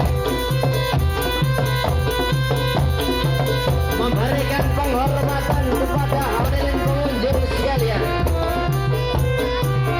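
Traditional Javanese jaranan music: drums and tuned gong-chime instruments playing a steady repeating beat, with a wavering melody line rising over it in the middle.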